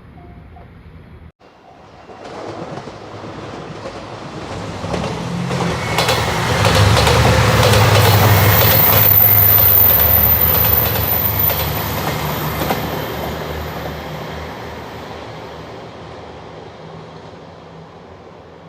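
A train passing: the rumble builds, is loudest in the middle with rapid clicking and a thin high whine, then slowly fades away.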